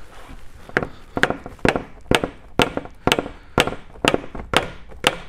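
Hammer striking a large flathead screwdriver used as a punch, metal on metal, to drive the front passenger CV axle's inner joint out of a BMW F30's front differential. There are about ten blows at a steady two a second, starting just under a second in.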